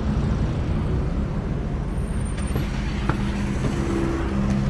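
Street traffic noise with a car engine running close by as a steady low hum.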